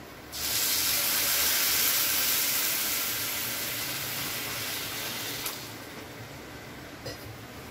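Half a cup of water poured onto sugar in a hot frying pan, hissing and sizzling: the hiss starts suddenly about a third of a second in and fades slowly over the next several seconds. This is the start of a sugar syrup.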